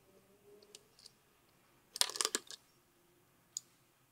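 Small metallic clicks and light rattles from the hand crank of a Bolex cine camera as it is unscrewed and lifted off the camera body, with a quick cluster of clicks about halfway through.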